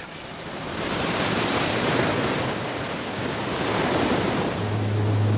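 Rough sea surf rushing and churning, swelling and easing in waves. A low steady tone comes in near the end.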